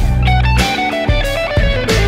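Fender Telecaster played through an AZOR Gold overdrive pedal, a Klon clone: a driven lead line of single notes stepping in pitch, with slides, over steady low notes.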